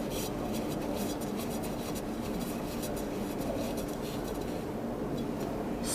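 Plastic water-filter cartridge being screwed by hand into its plastic filter cap: a dry rubbing, scratchy sound of threads turning, with many faint small ticks.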